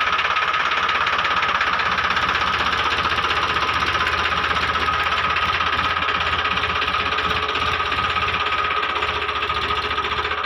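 Mini loader tractor's engine running steadily with a fast, even knock and a steady high whine over it.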